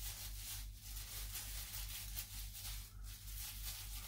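Disposable plastic glove rubbing dye into a full beard: a soft scratchy rustling of glove on hair, in repeated strokes a few times a second, over a low steady hum.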